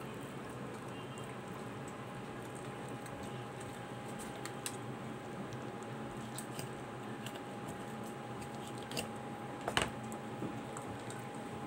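Soft wet squishing and small clicks as hands and a knife work through a raw whole chicken on a plastic cutting board while it is being deboned, with one sharper knock near the end. A faint steady hum runs underneath.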